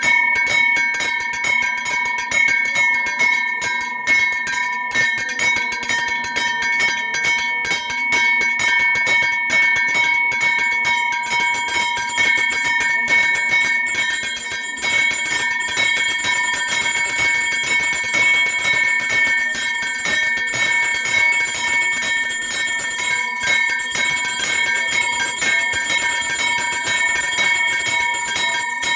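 Temple bells ringing rapidly and without a break during a puja's flame offering: a steady ringing tone over fast, closely packed strokes.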